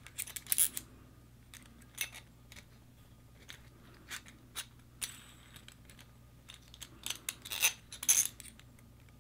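Small metal parts clicking and clinking in the hands: spring toggle-bolt wings being threaded onto machine screws held through a metal anchor plate. The clicks come in scattered clusters, near the start, about two seconds in, around four to five seconds, and again near the end.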